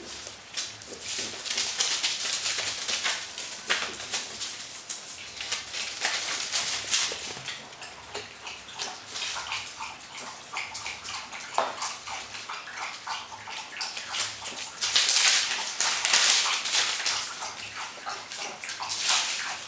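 Newspaper rustling and crinkling under French Bulldog puppies' feet as they walk and play on it, with scattered sharp clicks and scuffs, and a denser burst of crinkling about three-quarters of the way through.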